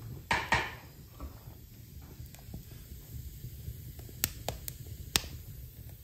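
Wood fire in an open wood stove burning and crackling, with a few sharp pops about four to five seconds in. Two short whooshes of air about half a second in.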